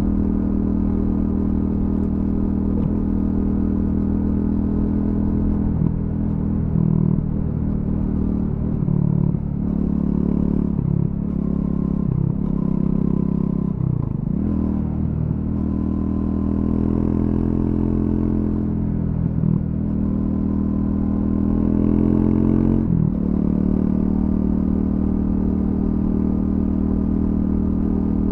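Triumph Scrambler 400X's single-cylinder engine running through its stock exhaust under a rider's throttle, the revs dropping and picking up several times. Later it makes one long, steady climb in revs that cuts off sharply near the end, like a gear change or the throttle being shut.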